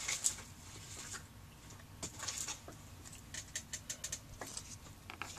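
Faint, scattered clicks and rustles of hands handling paper craft pieces and picking up a rubber stamp.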